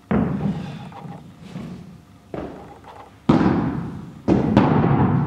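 Four heavy thuds with an echoing ring-out, the last two loudest: a shot-put ball and the thrower's feet striking the floor and wooden throwing platform.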